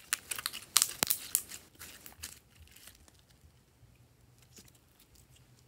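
Glossy slime squeezed and folded by hand, giving a quick run of sticky clicks and crackles for about two and a half seconds, then only a few faint clicks.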